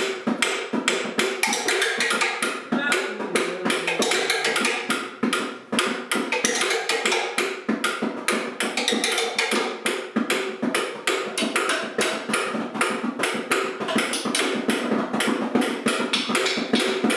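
Improvised percussion jam played on household things: fast, dense hand taps and knocks on wooden chairs, the table and other objects, keeping up a steady busy rhythm.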